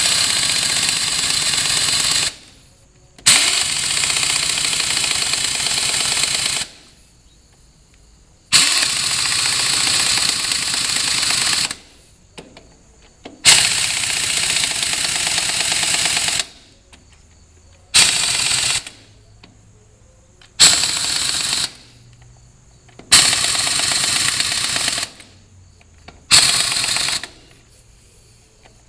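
Impact wrench hammering in eight bursts of one to three seconds with short pauses between them, the later bursts shorter.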